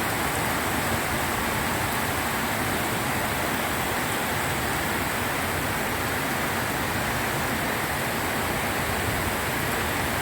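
Heavy rain falling steadily, a dense even hiss with no separate drops standing out.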